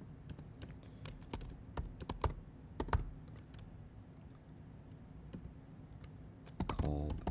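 Computer keyboard typing: irregular keystroke clicks, quick and frequent for the first three seconds, then only a few scattered taps.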